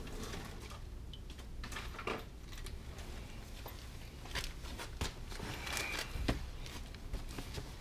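Faint, irregular light clicks and knocks with a brief rustle about six seconds in, the sound of small parts and tools being handled in a garage.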